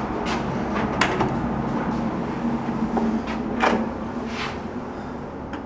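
A door opening, with a few sharp clicks and knocks over a steady low rumbling hum that fades toward the end.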